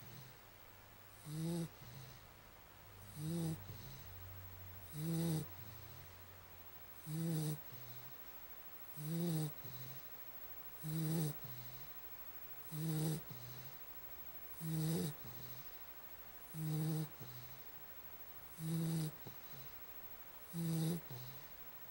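Snoring in a steady rhythm: one short, low snore about every two seconds, each with a breathy hiss over it.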